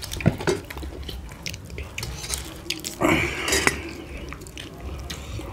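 Eating sounds: chewing, mouth smacks and scattered small clicks, including a fork against a plate. About three seconds in comes a short, louder breathy vocal sound.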